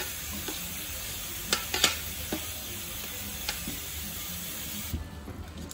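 A steady hiss with a few sharp clicks and knocks over it, cutting off suddenly about five seconds in.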